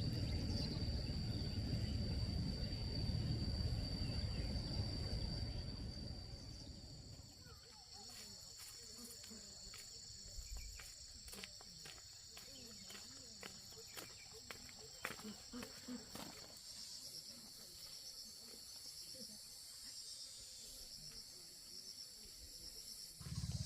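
Insects chirring steadily in a high-pitched, continuous drone. A low rumbling noise sits under it for the first seven seconds or so, then drops away, leaving scattered faint clicks.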